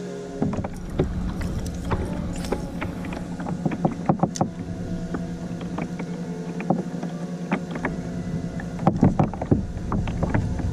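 Irregular knocks, clicks and water sounds on a plastic fishing kayak, over a steady low hum. The knocks come in louder clusters about four seconds in and again near the end.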